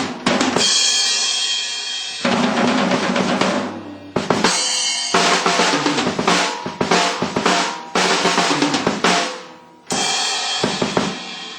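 Acoustic drum kit played in fills and grooves: the bass drum, damped by a pillow stuffed inside it, gives a short, tight thump among snare hits, hi-hat and crashing cymbals, with a few brief pauses between phrases.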